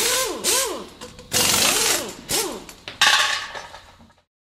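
Intro sound-effect sting of mechanical noise: loud noisy hits about once a second, each carrying a whine that swoops up and then down, dying away just after four seconds in.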